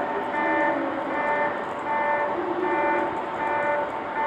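A passenger train running slowly over pointwork, under a repeating electronic two-tone chime that alternates between its two notes about every three-quarters of a second.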